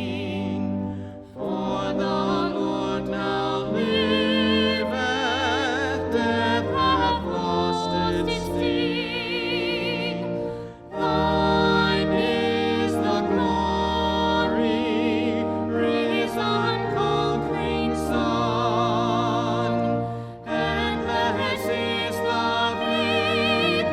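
Sacred vocal music: sustained singing with strong vibrato over a held low accompaniment. The phrases break briefly about every ten seconds.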